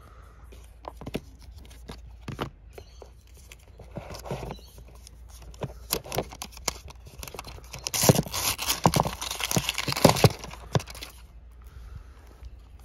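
Hands handling the packaging and power adapter: scattered clicks and knocks, then a louder stretch of crackling and tearing from about eight to eleven seconds in as the paper protective wrap is peeled off the power adapter.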